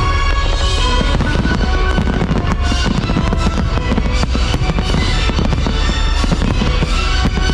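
Fireworks bursting and crackling in quick, irregular pops over loud music with a steady drum beat.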